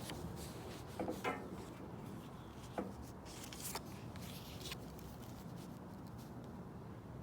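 Pen writing on paper: a few short scratches and rustles about a second in and again every second or so until about halfway, over a steady low background hum.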